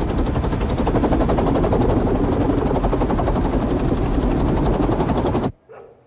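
Small wind turbine rotor spinning fast in a strong airflow: a loud, steady whirring of rushing air with a rapid, even blade chop. It cuts off suddenly about five and a half seconds in.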